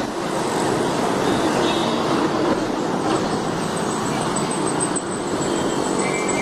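Steady din of road traffic, a dense mix of passing vehicles.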